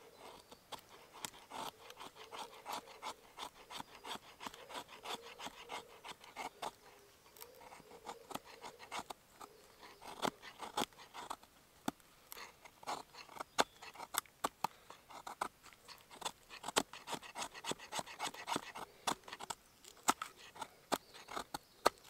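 Knife blade shaving thin curls from split pine, carving feather sticks as fire tinder: a run of short, irregular scraping strokes, several a second.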